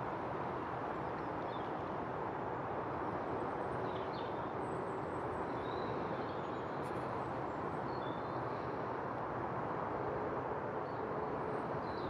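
Steady outdoor background roar, even throughout, with a few faint, brief bird chirps scattered through it.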